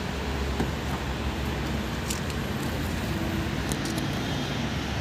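Steady low background rumble, with a faint hum partway through and a couple of faint ticks.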